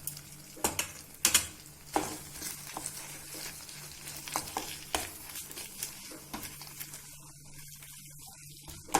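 A spatula stirring and scraping thick bread halwa around a kadai, with irregular knocks against the pan over a soft sizzle of ghee. The strokes thin out over the last two seconds.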